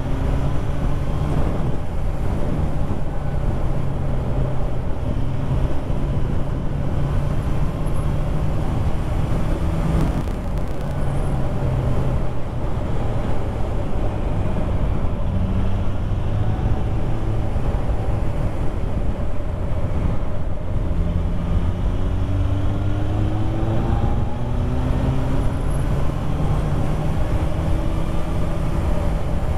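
Motorcycle engine running on the move, its pitch rising several times as it accelerates and dropping back between, over steady wind noise.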